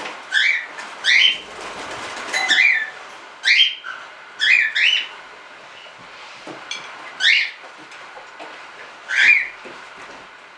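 Cockatiels calling: about eight short, loud, rising whistled calls at irregular intervals.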